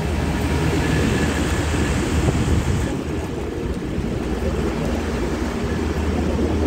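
Large rooftop HVAC units running: a steady low machinery drone with a rush of fan air over it, easing slightly about three seconds in.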